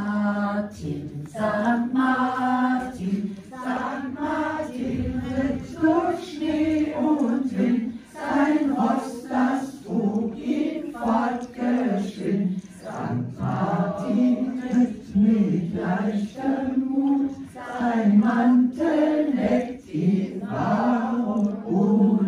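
A small group of elderly people singing together in unison from song sheets, unaccompanied, with held notes and short breaths between phrases.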